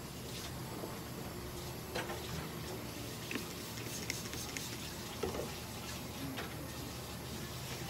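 Trigger spray bottle squirting liquid onto a cat's fur in a few short sprays, wetting the coat where the ECG electrode clips attach, with faint clicks of handling.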